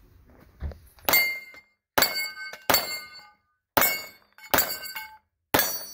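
Six pistol shots in quick succession, about a second apart, each followed by a metallic ring from steel targets being hit.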